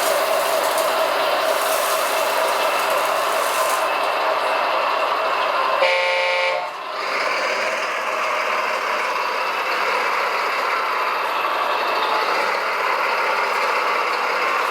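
Radio-controlled truck's electric drive and gearbox whirring steadily, with a short horn toot a little before six seconds in.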